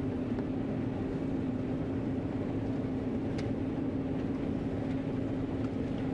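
John Deere 9500 combine running steadily while harvesting soybeans, heard from inside the cab: an even machine drone with a steady hum and a few faint ticks.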